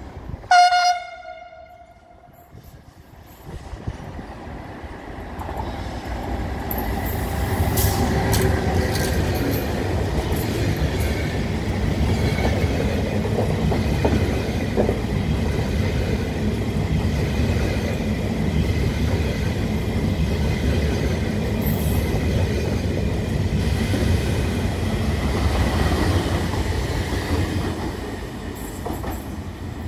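A short blast of a train horn about half a second in. Then a long passenger train of Russian sleeping cars passes slowly and steadily, its rumble and wheel noise building up and fading near the end, with faint wheel squeal.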